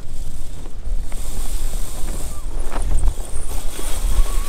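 Wind buffeting the microphone in a low, uneven rumble over a faint hiss, with one short click about three seconds in.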